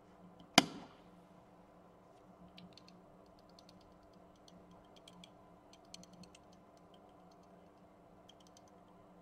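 One sharp click of a small toggle switch being flipped about half a second in, then faint light clicks and taps as a pocket compass is picked up and set down on the tabletop.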